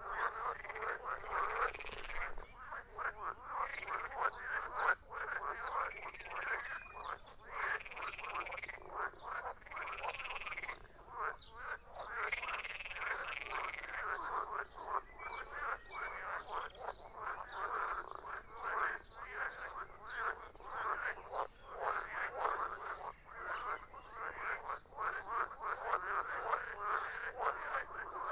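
A chorus of frogs croaking: many rapid, overlapping calls in a dense, unbroken stream.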